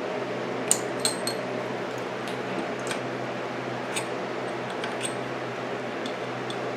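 Light metallic clicks and clinks of a wrench and steel parts being handled on a mini lathe, about seven scattered over a few seconds, the loudest near the start, over a steady background hum.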